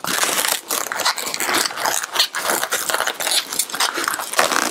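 Latex 260 modelling balloons rubbing and squeaking against each other as they are squeezed and twisted together, a dense run of short scratchy strokes.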